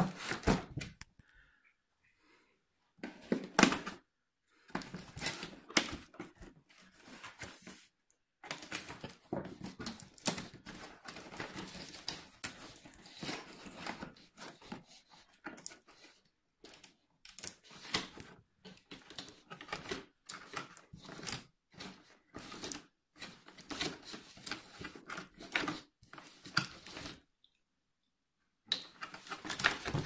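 Cardboard packaging handled by hand: irregular rustling, scraping and clicking in spells, with a few short silent gaps.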